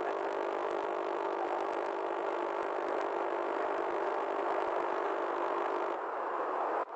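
Steady vehicle running noise with a constant hum, cut off abruptly for a moment near the end.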